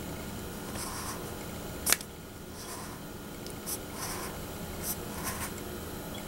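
Craft knife blade drawn through a polystyrene foam ball: a series of short scratchy squeaks and scrapes as it cuts along a line, with one sharp click about two seconds in.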